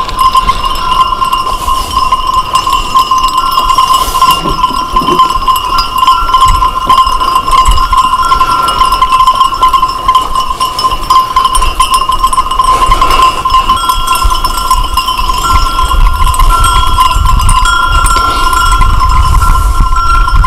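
Bells on a grazing sheep flock clinking and ringing without a break, the many bells blending into a steady jangling chime.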